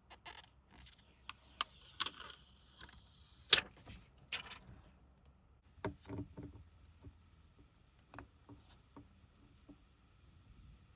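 Scattered sharp clicks and taps of small hand tools and parts being handled during a phone screen repair, with a soft hiss through the first few seconds and the loudest click a little past the middle of that stretch.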